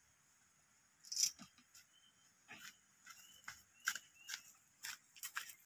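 A plastic bucket of freshly picked bottle gourds being lifted and carried, with footsteps on dry leaf litter: an irregular run of sharp crackles and knocks starting about a second in. A few faint short high chirps sound between them.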